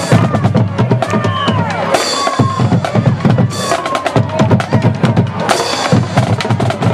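A drumline playing rapid snare and bass drum beats, with crowd voices mixed in.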